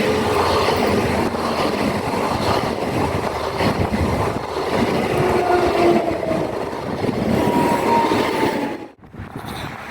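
A train running past on the rails, a dense steady rumble of wheels and cars, with wheel squeal rising in a few drawn-out tones partway through and near the end; the sound cuts off suddenly about nine seconds in.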